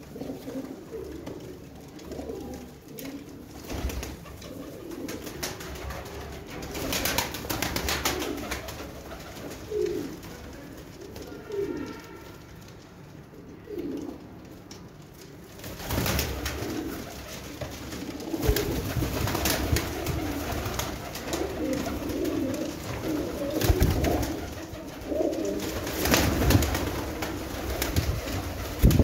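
A loft full of domestic pigeons cooing, many overlapping low rolling coos throughout, with several louder rustling bursts, mostly in the second half.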